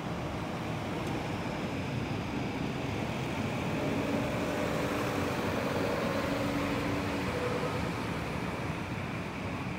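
Steady street traffic noise, with a vehicle's engine hum swelling and fading in the middle.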